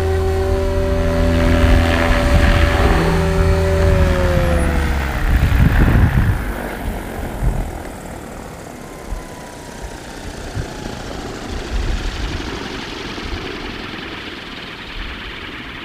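XLPower XL550 RC helicopter's electric motor and rotor head humming steadily in flight, then about four seconds in the pitch falls as it is throttled down to land. A brief rush of noise about six seconds in, then the main rotor spins down with a quieter, fading whir.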